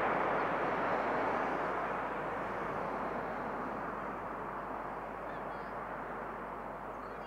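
Jet noise from a four-engined Boeing KC-135 Stratotanker on final approach with its gear down, a steady rush that fades as the aircraft moves away toward the runway.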